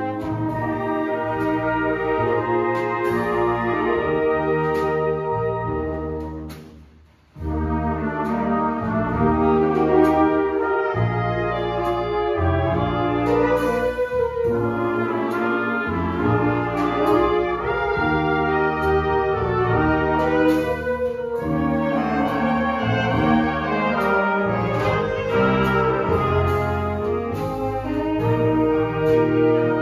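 Dixieland band of trumpets, trombones, clarinets, saxophones and drums playing a blues. About six seconds in the band drops away almost to nothing, then everyone comes back in together about a second later.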